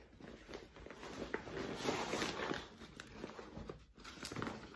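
Backpack being handled and turned upright on a table: irregular rustling of its fabric with a few light knocks and clicks from straps and buckles.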